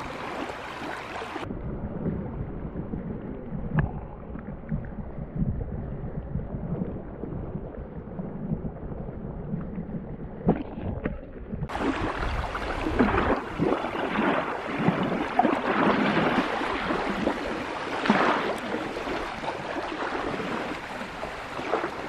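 Light wind buffeting the microphone over small waves lapping on a gravel lakeshore. It sounds muffled for the first half, then opens up again.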